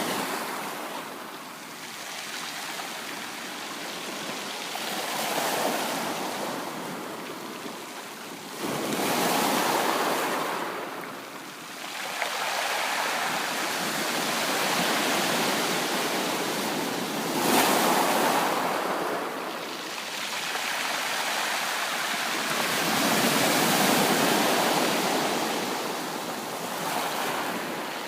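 Sea waves breaking and washing in, a steady rush of surf that swells and ebbs every few seconds.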